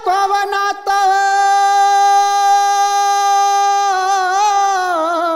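A high-pitched male voice singing one long held note in a traditional Marathi devotional folk song to Mahadev. The note holds steady for about three seconds, then wavers and falls near the end, with no drumming under it.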